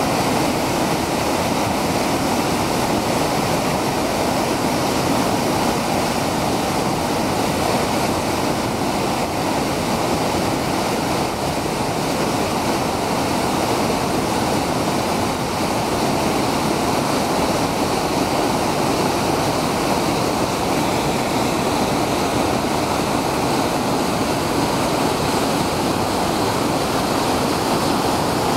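Waterfall with a drop of about five to six metres and about ten metres across, its white water pouring steadily over rock ledges in an even, unbroken rush.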